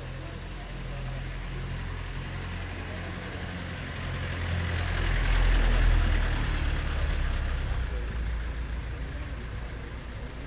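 A motor vehicle's engine passing close by in the street. It grows louder to a peak about six seconds in, then fades.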